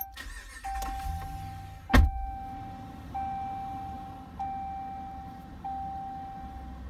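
Ram pickup truck's engine cranked on the key and catching about two seconds in with a sharp, loud start, then running with a low rumble. A single-tone dashboard warning chime sounds over it, restarting several times.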